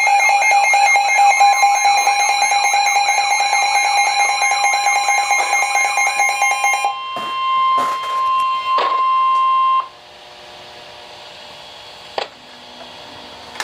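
Emergency Alert System alert tone: a loud electronic two-note tone with a pulsing buzz for about seven seconds, then a single steady tone that cuts off about ten seconds in, followed by a faint hum and a few clicks.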